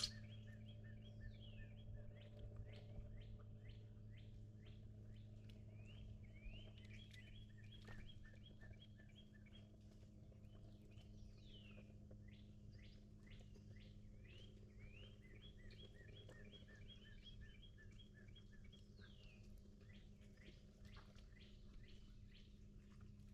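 Faint birdsong: many short, quickly repeated chirps and now and then a downward-sliding whistle, over a low steady hum. A single sharp click right at the start.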